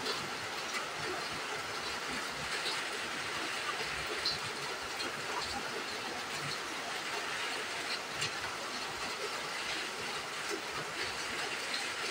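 Heavy rain falling, a steady, even hiss, with a few faint clicks over it.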